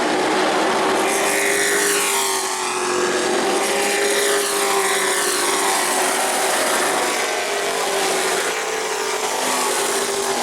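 Racing trucks' engines running at speed on a short oval, a steady loud drone with the pitch sweeping as trucks go by about two to three seconds in.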